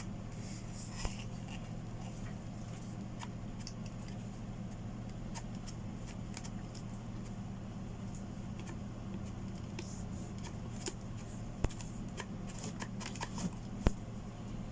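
Scattered light clicks, taps and short scrapes of small tool parts being handled, with a few sharper clicks near the end, over a steady low hum.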